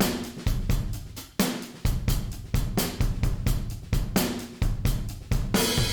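A soloed drum kit playing a steady groove of kick, snare and hi-hats, with a cymbal crash near the end. The drums run through a tape-style saturation plug-in applied only to the high end above about 10 kHz, which rounds off the transients.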